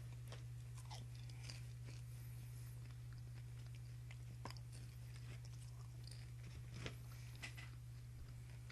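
Faint crunching of popcorn being chewed, in scattered irregular crackles, over a steady low electrical hum.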